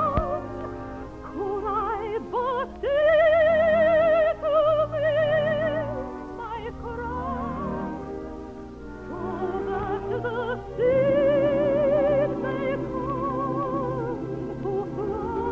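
A soprano singing a waltz song in operatic style, with wide vibrato on long held notes, over musical accompaniment.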